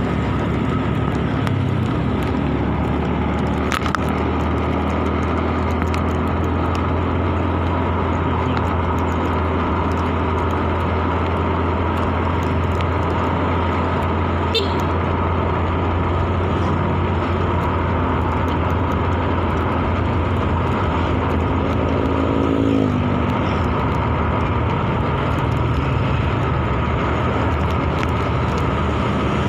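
Motorcycle engine running while riding in town traffic, with steady road noise. About three quarters of the way through, the engine pitch climbs for a couple of seconds and then drops suddenly.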